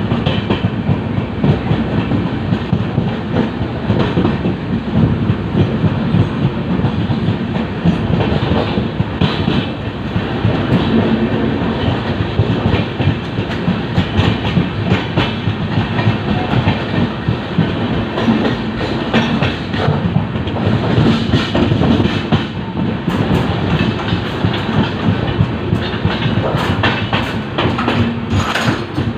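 LHB passenger coach running on the track, its wheels clattering over rail joints: a steady heavy rumble with many quick, irregular clicks.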